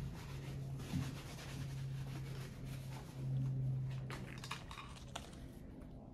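Handling noises as a small plastic bottle of shoe shampoo is picked up from a desk: light rustling, then a few sharp clicks about four to five seconds in, over a steady low hum.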